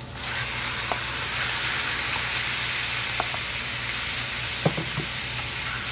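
Cubes of raw pork belly hitting a hot stainless-steel wok of sautéed onion and garlic, setting off a steady frying sizzle that starts the moment the meat lands. A few light knocks come about two thirds through as the pieces are stirred with a wooden spoon.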